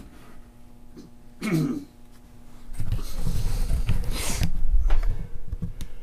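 Handling noise from a handheld Zoom video recorder being picked up and moved: a short falling tone about a second and a half in, then a low rumble with irregular thumps and a brief scrape.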